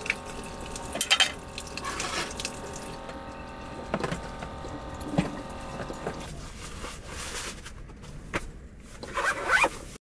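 A frying pan and utensils knocking and clattering on a small butane-canister camp stove, over a steady hum that stops about six seconds in. A last flurry of clatter comes near the end.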